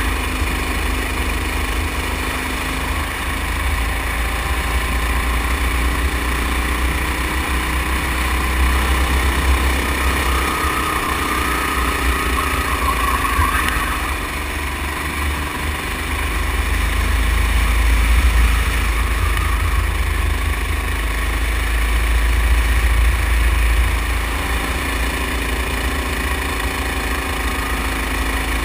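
Sodi rental go-kart's small engine running under throttle, its pitch rising and falling as the kart speeds up and slows, with a heavy rumble of wind on the microphone.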